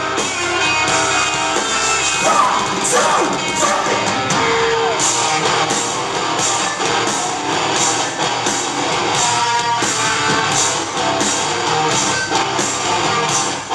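Rock band playing live through a concert PA: amplified electric guitars and a drum kit in the instrumental intro of the song, with a steady beat and regular cymbal hits.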